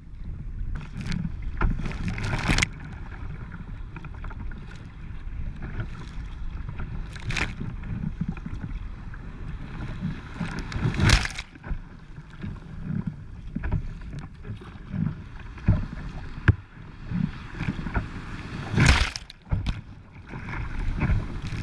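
Wind buffeting the camera microphone over water sloshing and splashing against a sea kayak's hull in rough, breaking waves, with several sharp splashes; the loudest comes about eleven seconds in, and another pair near the end as the kayak runs through whitewater.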